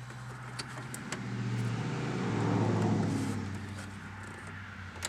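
A car driving past: its engine and tyre noise swell to a peak about three seconds in and then fade away, over a steady low hum, with a few light clicks.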